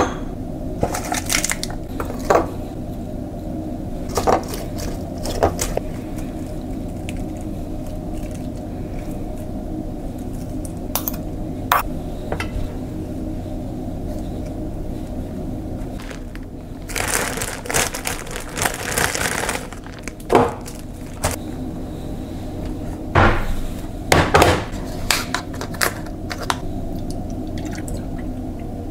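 Kitchen handling sounds of sandwich making: scattered clicks and clinks of a metal bowl and plate, with a spell of crinkling and crackling about two-thirds of the way through, over a steady low hum.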